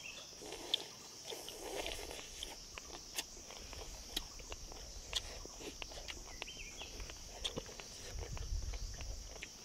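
Insects chirring in a steady high drone, with scattered sharp small clicks and taps and a low rumble swelling near the end.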